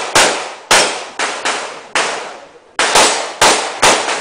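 Handgun fired in a quick string: about eight sharp shots roughly half a second apart, with a slightly longer pause near the middle, each crack trailing off in a short echo.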